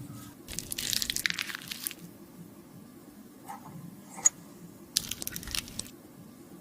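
Crunchy, crackling handling noise from makeup being worked, in two spells of about a second and a half and a second, with one sharp click between them.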